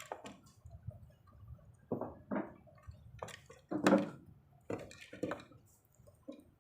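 Handling noises: a string of short knocks and clicks from things being moved and set down by hand, irregularly spaced, the loudest about four seconds in.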